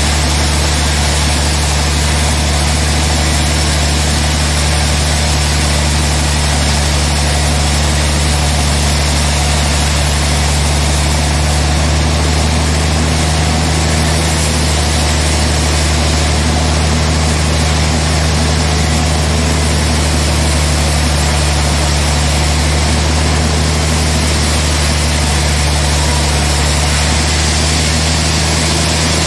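Large band sawmill running steadily, a loud unchanging low machine hum.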